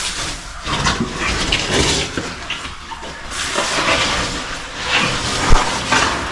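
Water splashing and gravel shifting as someone moves through a shallow, gravelly cave stream, in uneven strokes, with one sharp knock about five and a half seconds in.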